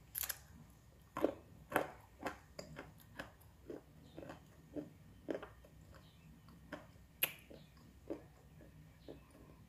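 Dry brown clay being chewed: sharp, irregular crunches about twice a second, coming less often toward the end.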